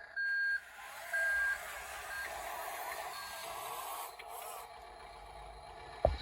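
Reversing beeper on a radio-controlled construction vehicle: two loud beeps about a second apart, then two fainter ones, over the whine of small electric drive motors. A sharp knock comes near the end.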